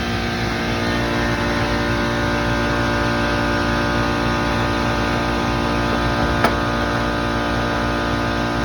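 Commercial HVAC equipment running with a steady mechanical hum, and a single sharp click about six and a half seconds in.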